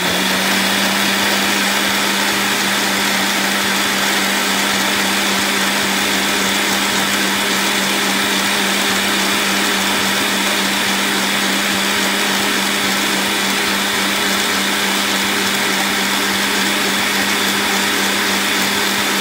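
Oster countertop blender running steadily, puréeing a liquid mix of boiled peanuts, shallots and garlic into a smooth sauce: a loud, unchanging motor whine over a dense churning hiss.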